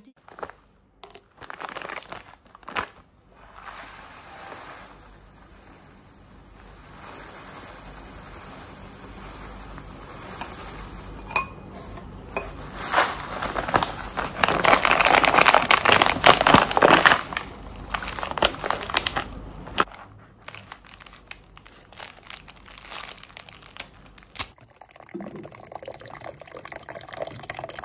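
A plastic cereal bag crinkling as dry cereal flakes pour out of it into a bowl, loudest in the middle, then water poured over the flakes near the end.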